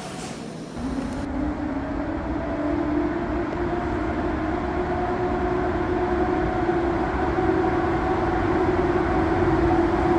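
An EU07 electric locomotive approaches hauling a freight train. It gives a steady electric hum that rises slightly in pitch and grows louder, over a low rumble. In the first second the noise of a different passing freight train is cut off.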